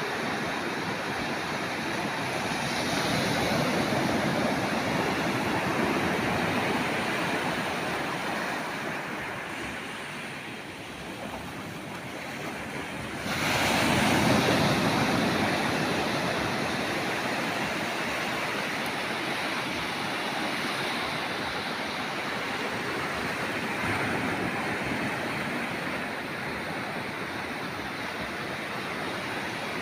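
Ocean surf breaking on a beach: a steady wash of waves that swells and fades, with a louder wave crashing about thirteen seconds in.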